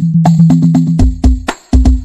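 Hadroh frame-drum music with heavy, boosted bass: a fast run of drum strikes over a steady deep bass note, giving way about halfway through to a few spaced, heavy bass hits.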